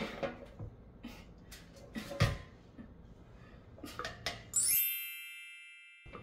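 A few light knocks and clinks of a spoon working dough in a glass mixing bowl and a baking tin being handled. About four and a half seconds in comes a bright, shimmering chime, an edited-in sound effect, that rings and fades out over a second and a half.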